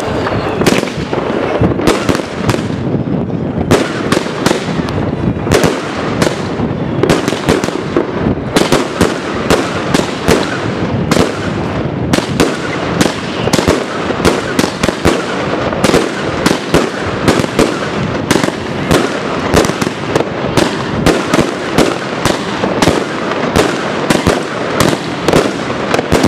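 Slooijer 19-shot fireworks cake firing: a rapid, continuous string of sharp bangs from shots launching and bursting, about two a second, over a steady noisy background between them.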